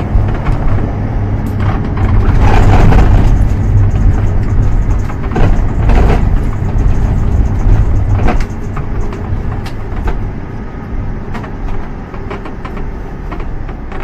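Vehicle on the move, heard from inside the cabin: a heavy, steady low road rumble with scattered knocks and rattles. It is loudest for the first eight seconds or so, then eases off.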